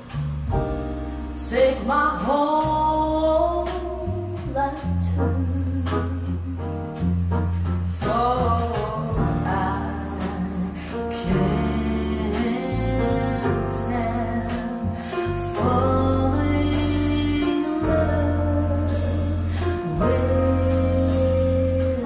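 A song with singing over steady deep bass notes and light percussion, played through Boston Acoustics M350 floor-standing loudspeakers.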